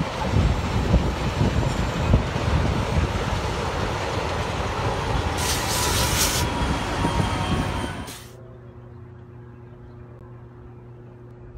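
Passenger train cars rolling past close by: a steady rumble of wheels on rail, with a brief high hiss about five and a half seconds in. About eight seconds in it cuts to a much quieter, steady low hum.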